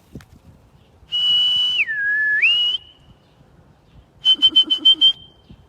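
A pet parrot whistling. First comes one long clear whistle that drops to a lower note and climbs back up. Then, about four seconds in, a quick run of about seven short whistled notes.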